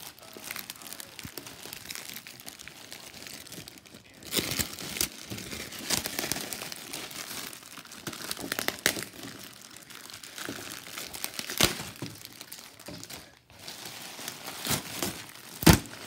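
Clear plastic wrap around a basket crinkling and crackling as hands pull at it, in irregular bursts that start about four seconds in, with the loudest sharp crackle near the end.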